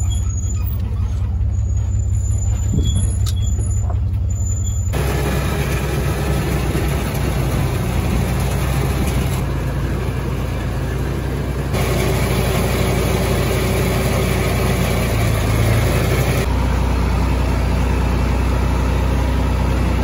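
Pickup truck driving with a low rumble, then, after a cut, a John Deere tractor's engine running steadily as it is driven, across several short clips.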